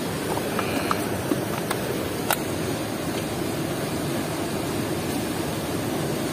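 Steady rush of water churning out below a river weir's sluice gate, with one sharp click about two seconds in.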